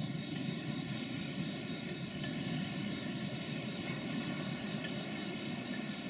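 Steady low rumble of background machinery noise, unchanging throughout.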